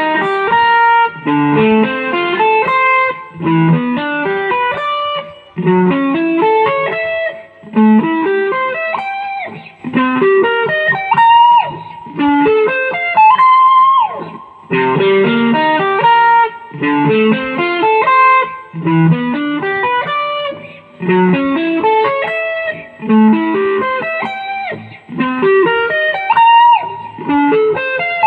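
Amplified plucked-string instrument playing a solo instrumental melody: quick picked notes in short phrases roughly every second and a half, each followed by a brief pause, with some notes bent or slid upward.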